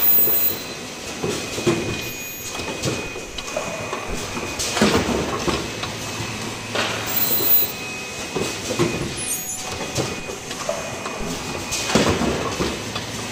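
Richpeace automatic cup mask production line running: a steady mechanical clatter, broken every second or two by clunks and short bursts from its moving stations.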